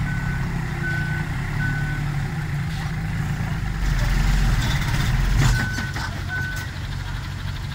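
Six-wheel dump truck's diesel engine running while it reverses, its reversing alarm sounding short beeps at one steady pitch: three in the first two seconds, then two more after the engine swells louder for a second or two mid-way.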